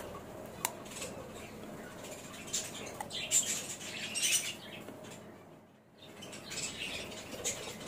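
Close-up chewing of crisp raw kancha mithe mango: irregular crunchy bursts, with a short lull about three-quarters of the way through.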